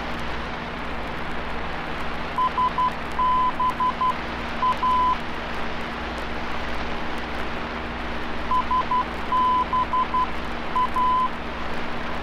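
Morse code identifier of a VOR omni-range radio beacon heard through an aircraft navigation receiver: a beeping tone keying S-B-A (dot-dot-dot, dash-dot-dot-dot, dot-dash) twice, about six seconds apart, over a steady hiss.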